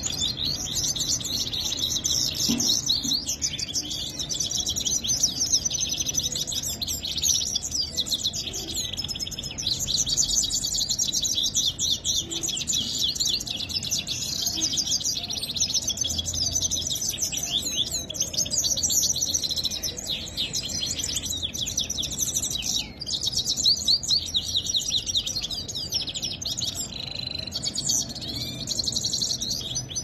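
Caged small finches chirping and twittering without pause, many rapid high chirps and trills overlapping.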